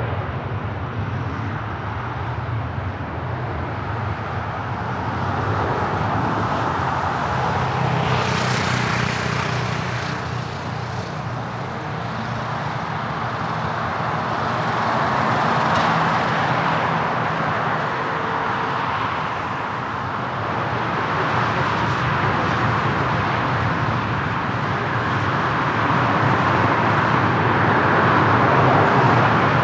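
Jet airliner engines running, a steady rushing drone with a low hum that swells and eases slowly, with a brief rise in hiss about eight seconds in.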